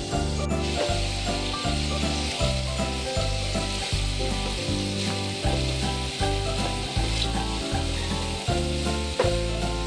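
Food frying in a pan with a steady sizzle, under background music with a regular bass line.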